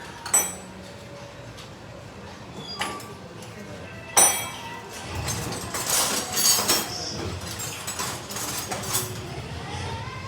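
Sharp metallic clinks and knocks of hand tools on metal: a few single strikes, then a quicker run of several in the second half.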